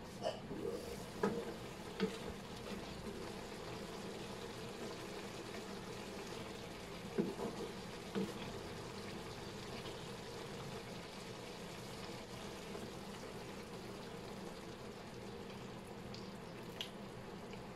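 Ground pork simmering and sizzling in a metal wok, a steady bubbling hiss. A few knocks of the lid and a spatula against the pan come in the first two seconds and again about seven and eight seconds in.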